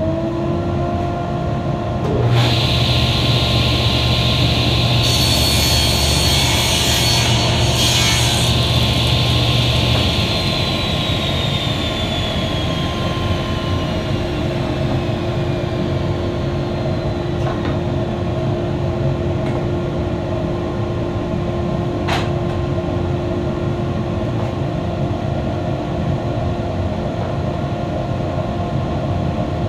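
Table saw running at full speed. A board is crosscut through the blade from about two seconds in to about ten seconds in, which makes the sound louder and rougher. The saw then runs on steadily without load, with a single sharp click a little past the middle.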